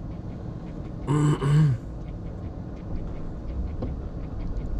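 A man's short two-part vocal sound, about a second in, over the low steady rumble of a car idling in line, heard from inside the cabin.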